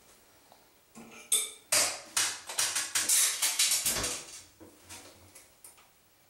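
Small metal hardware clinking and clattering against a hard counter in a quick, busy run of clicks for about three seconds. It ends with a dull thud about four seconds in, then a few faint clicks.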